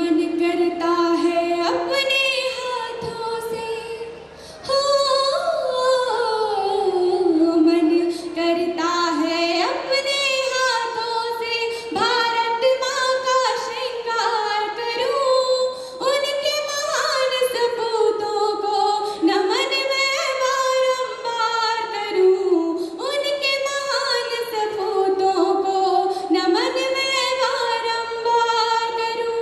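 A woman singing solo into a handheld microphone, a melodic line of held notes with slides between pitches and brief pauses for breath.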